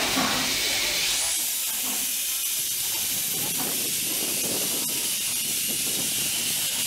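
Steady hiss of steam venting from the front end of the Iron Horse, a small steam locomotive. About a second in, the hiss turns higher and brighter and then holds.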